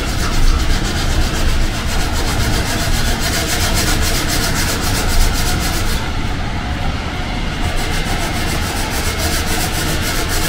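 Hand sanding a carbon-fibre car spoiler with a sanding sponge: quick back-and-forth rubbing strokes that let up briefly about six seconds in, over a steady low rumble.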